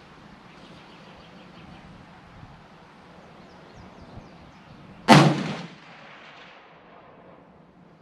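A single rifle shot from a Ruger American Go Wild in .300 Win Mag about five seconds in: one sharp crack that dies away over about a second.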